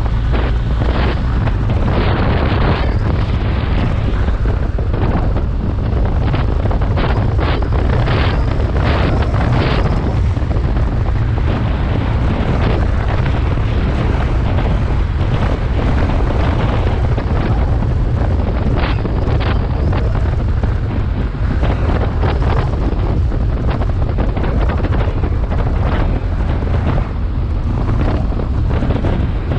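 BMW R 1250 GS boxer-twin motorcycle riding downhill, its engine under heavy wind noise buffeting the microphone. Short sharp clicks come in clusters through the first third and again about two-thirds through.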